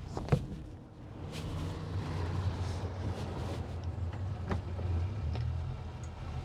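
Boat's outboard engine running steadily at low speed, a low even hum that grows louder about a second in. A single sharp knock just after the start.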